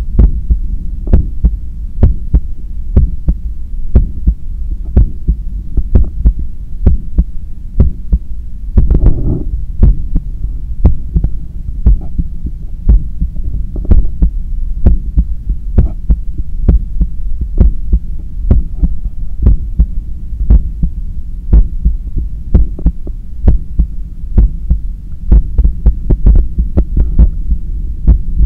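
Human heart beating, heard through a stethoscope: a steady, regular run of low thuds as the heart valves close. The beats are strong because the heart is still recovering from a 10 km run.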